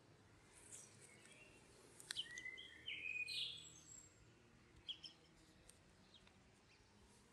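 Faint birds chirping in the background: short high calls with a cluster of gliding whistled notes around the middle, and a single light click about two seconds in.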